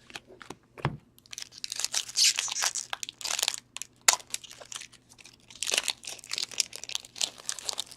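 Foil wrapper of a hockey card pack crinkling and tearing as it is handled and opened, with light clicks of cards being moved. The rustling comes in two main stretches, one in the first half and one near the end.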